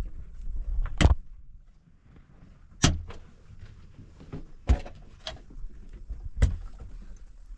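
A series of sharp knocks or blows: four loud ones roughly every two seconds, with a few fainter ones between them.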